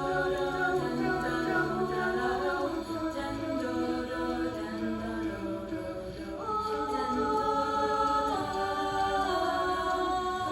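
Layered a cappella vocal harmony: several voices hold long chords without words. The chord changes about two and a half, six and a half, and eight seconds in.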